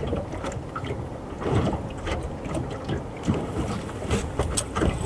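Water slapping and lapping against the hull of a small moored fishing boat, with irregular low knocks and wind buffeting the microphone.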